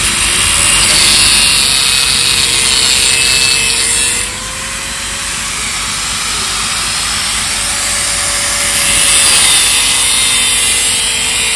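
Handheld angle grinder with a cut-off disc running steadily and cutting through the metal inlet pipe of an aftermarket exhaust silencer, trimming it for welding. The grinding is loudest for the first few seconds and again near the end, easing off for a few seconds in between.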